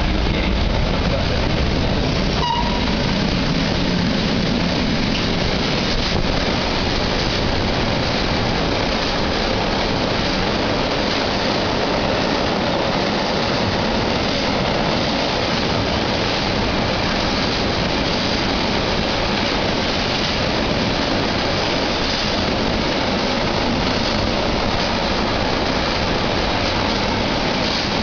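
Freight train of container-carrying flat wagons passing through close by at speed: the steady, loud rumble of steel wheels running on the rails as wagon after wagon rolls past.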